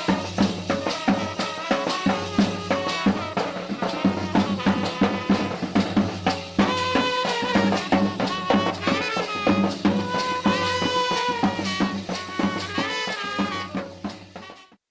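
Band party music: drums and rattling percussion keeping a steady, fast beat, with a pitched melody coming in about halfway. The music fades out and stops just before the end.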